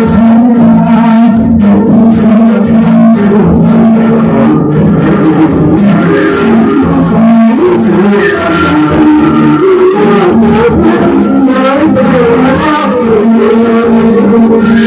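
Background music with a guitar playing the melody over a steady beat.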